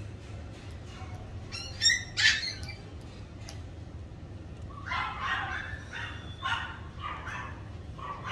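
Toy Pomeranian puppy at play with a pink rubber toy, giving high-pitched squeaks and yips: two sharp squeaks about two seconds in, then a run of short repeated squeaks from about halfway on.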